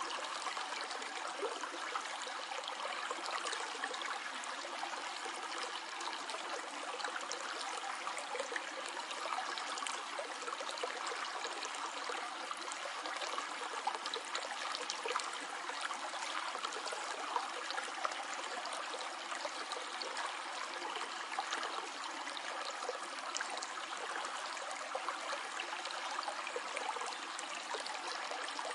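Stream water flowing and trickling steadily, a continuous babble with small splashes throughout.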